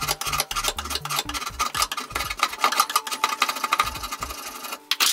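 Drawknife shaving a wooden hatchet handle: a rapid run of short scraping strokes of the blade on the wood, with a louder scrape near the end.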